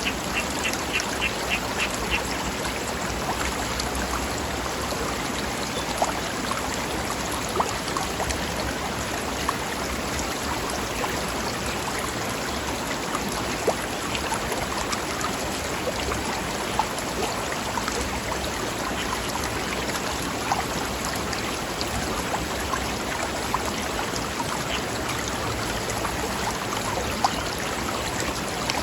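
Forest river rushing steadily over rocks, with small splashes. A quick run of high repeated calls from a small animal is heard in the first two seconds and again near the end.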